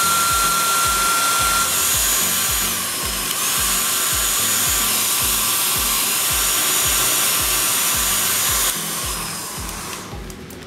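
Handheld craft heat tool running, a steady rush of air with a thin fan whine, drying wax and paint on a paper tag. It is switched off about nine seconds in and winds down over the next second. A steady beat of background music plays underneath.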